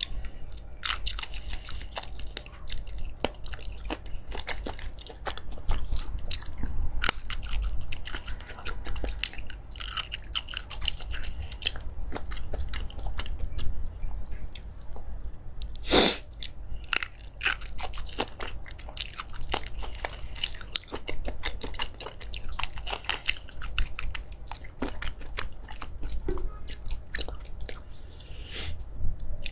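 Close-miked chewing and biting of crunchy food: a continuous, irregular run of crisp crunches, with one louder crunch about halfway through.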